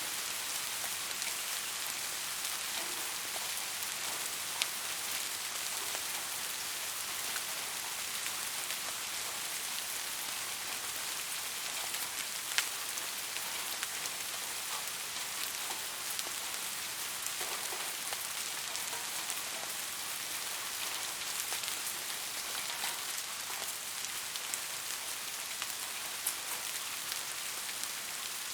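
Steady rain falling, an even hiss with scattered sharper drop ticks, the loudest about twelve seconds in.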